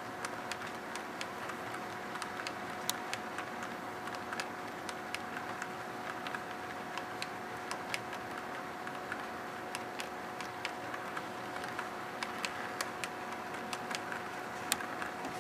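HO-scale model freight train rolling past, its cars' wheels clicking irregularly over the rail joints, over a steady hum.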